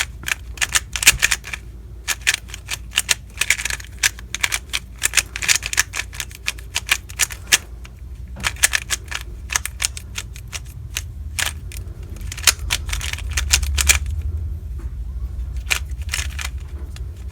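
Plastic 3x3 speedcube being turned quickly: runs of sharp, rapid clicks from the layers turning, broken by short pauses.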